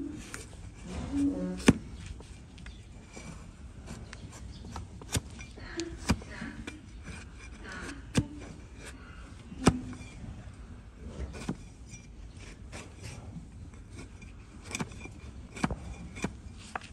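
Large flat hoof knife paring an overgrown donkey hoof, the blade slicing and scraping through the horn. About a dozen sharp cracks at irregular intervals as slivers break away.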